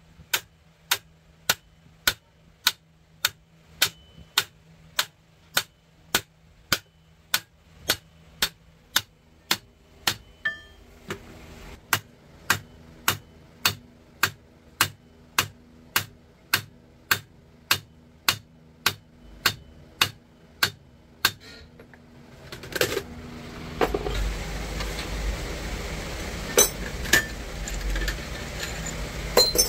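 Hammer tapping on metal in a steady rhythm, about two sharp taps a second. About 22 seconds in the even tapping stops and a low rumble with scattered, irregular knocks takes over.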